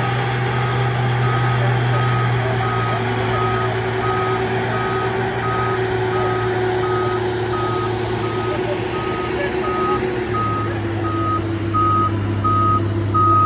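Shuttlewagon railcar mover's diesel engine running with its reversing alarm sounding a steady series of beeps, which grow louder near the end. The engine note drops slightly about ten seconds in.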